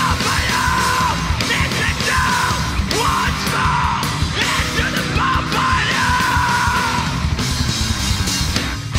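Live heavy metal band playing at full volume: distorted electric guitars, bass guitar and fast, dense drumming under shouted vocals. The music briefly breaks near the end.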